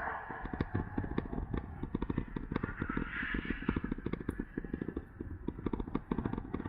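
Wind buffeting the microphone in rapid irregular thumps, with rattling from an electric bike riding along at speed.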